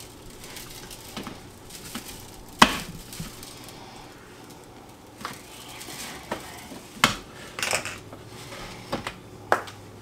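Scattered knocks and clinks of kitchen handling: a metal rotisserie spit and forks knocking against a metal sheet pan as the roast is turned, and seasoning shakers being shaken and set down on the counter. The sharpest knock comes about a quarter of the way in, with several more in the second half.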